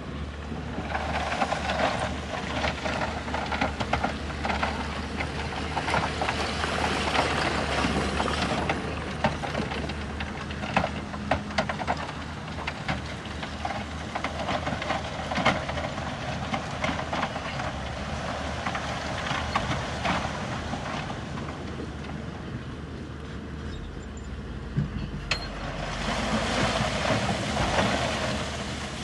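Bulldozer's diesel engine running steadily under load while stone crunches and clatters as it is pushed and spread, with louder stretches of rock noise near the start and near the end.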